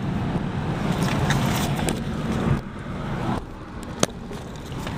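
A car driving, with steady engine and road rumble. The rumble drops away a little past halfway, and there is one sharp click about four seconds in.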